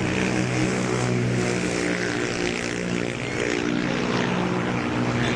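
An engine running steadily with a low hum, with a hiss over it.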